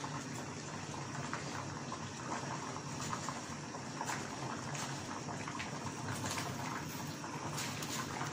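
Raw mango strips boiling in water in a stainless steel saucepan: the steady bubbling of a rolling boil, with scattered small pops.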